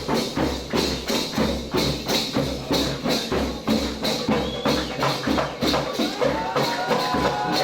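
Percussion-driven music with a fast, steady beat: drum thumps with tambourine jingles over them. A held melodic line, an instrument or a voice, comes in about six seconds in.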